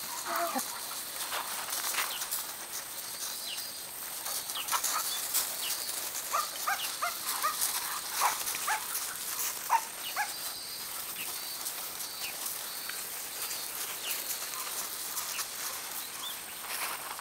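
Collies and a papillon tussling over a ring toy on gravel: short high-pitched dog cries, most of them about six to ten seconds in, over the scuffle and crunch of paws on the gravel.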